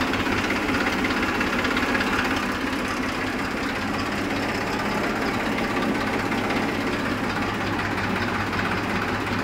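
Massey Ferguson 241 DI tractor's three-cylinder diesel engine idling steadily, freshly started.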